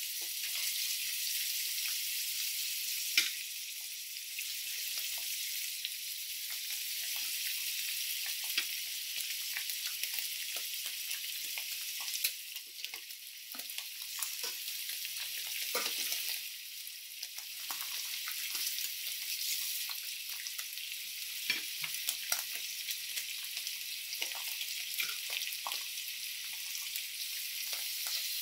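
Beef short ribs sizzling as they sear in a stainless steel pan, a steady hiss. Metal tongs click and scrape against the pan and the meat as the ribs are turned and moved, with one sharp clack about three seconds in.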